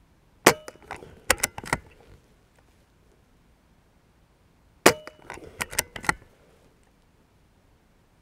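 Two shots from a BSA Ultra SE .22 PCP air rifle, about four seconds apart. Each is a sharp crack followed within a second and a half by a run of lighter clicks and clacks as the bolt is worked to chamber the next pellet.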